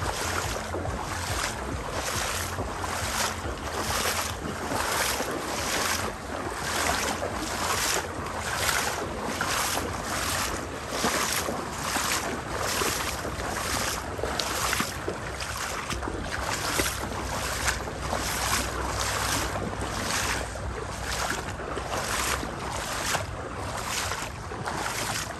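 Water splashing in an even rhythm, about three splashes every two seconds, over a steady low rumble of wind on the microphone.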